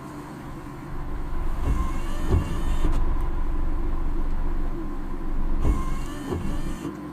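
Car engine and road noise heard from inside the cabin, a steady low rumble that swells about a second in as the car drives on.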